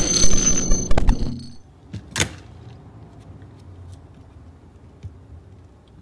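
Loud intro sound effect, a noisy burst with a steady high tone in it, cutting off a little over a second in; then a single sharp click about two seconds in, followed by a faint steady room hum.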